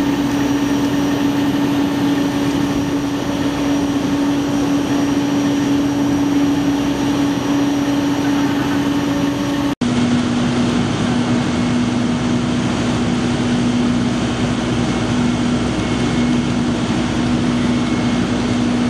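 Fire apparatus diesel engines running steadily at the fireground, a constant droning hum. After a momentary break about ten seconds in, the hum is slightly lower in pitch.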